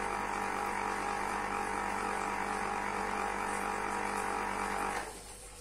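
Electric lever-press citrus juicer running, its motor spinning the reamer cone with a steady hum as a lemon half is pressed down onto it. The motor cuts off suddenly about five seconds in as the lever is released.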